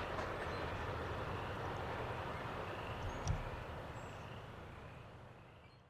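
Rolling noise of a train passing on the rails, with a single knock about three seconds in, then fading steadily as the train moves away.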